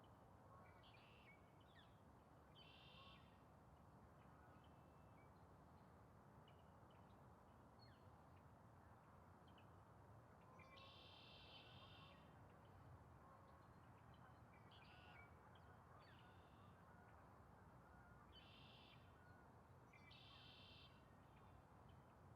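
Faint wild bird calls: about seven short calls, each lasting half a second to a second and a half, the longest about eleven seconds in, with scattered thin chirps in between, over a steady low background rumble.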